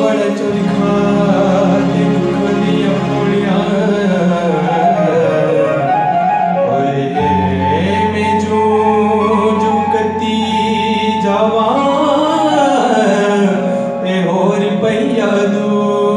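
Male vocalist singing a slow, ornamented melody over long held electronic keyboard chords and bass notes that change about seven and twelve seconds in.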